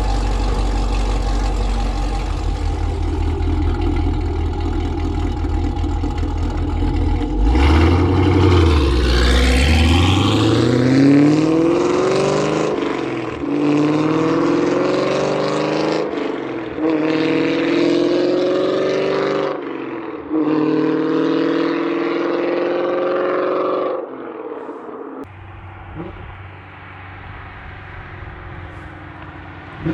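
Chevrolet Camaro SS 1LE's 6.2-litre V8, breathing through long-tube headers, runs steadily at low revs. About seven seconds in it goes to full throttle and climbs in pitch through four gears, with a short break at each of three manual upshifts. About 24 seconds in the driver lifts off and it drops to a quieter, lower running note.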